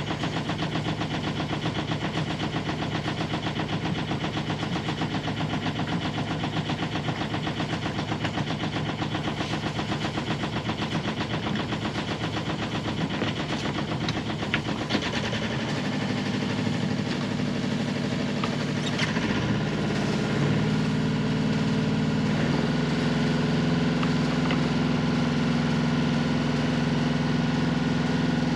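Sailboat's newly rebuilt inboard engine running, a rapid even chugging. About fifteen seconds in, the note changes to a louder, steadier hum, which shifts again around twenty seconds in.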